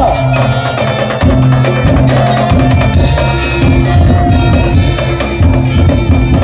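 Daul percussion ensemble playing: dense drum strokes and heavy bass under a held melody line.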